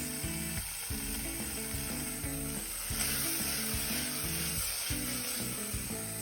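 Food frying with a steady sizzle, swelling about three seconds in, over soft background music.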